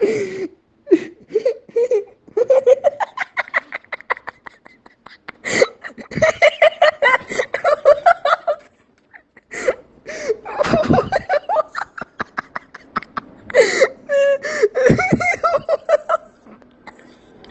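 A person laughing hard in several long bouts of rapid, pulsing laughter, with short breaks for breath between them.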